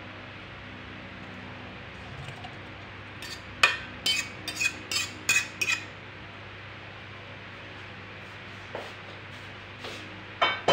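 A quick run of about seven sharp metallic clinks with a short ring, then two more near the end. A metal cooking pot and a fork knock against a stainless-steel mixing bowl as cooked tripe is tipped into it.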